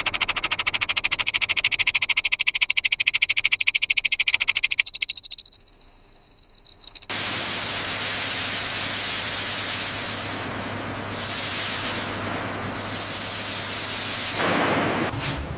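Factory machinery sound effects: a fast, even mechanical rattle for about five seconds, then after a short lull a steady hiss with a low hum underneath, swelling briefly near the end.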